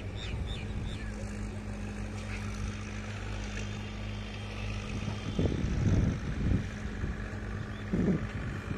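A steady low engine drone hums throughout. A few louder low rumbles rise over it about two-thirds of the way through and again near the end.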